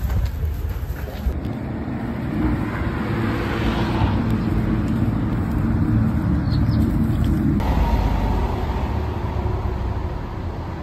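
Steady low rumble of outdoor background noise, like road traffic, changing abruptly in character about a second and a half in and again about seven and a half seconds in.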